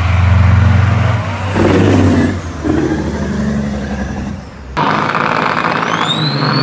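Loaded semi trucks' diesel engines running hard in a steady deep drone as they race. After an abrupt cut about five seconds in, a pair of big-rig diesels at the start line rev up, with a high whine that rises and then holds.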